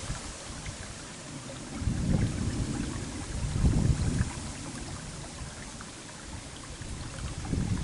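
Wind buffeting the microphone in gusts: low rumbles about two seconds and four seconds in, with another building near the end, over a faint steady hiss.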